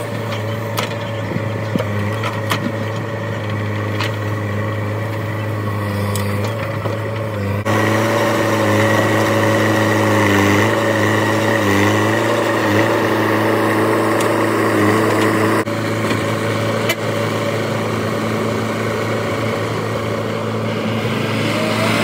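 Diesel engine of a JCB backhoe loader running steadily at a constant pitch, dipping briefly a couple of times in the middle. A few faint knocks sound in the first few seconds.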